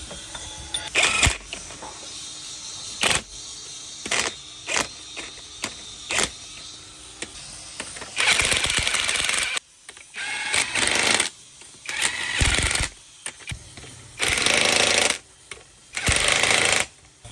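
Metal tool clicks and clinks from socket work on engine bolts, then five short bursts of an impact wrench hammering, each about a second long, loosening the bolts.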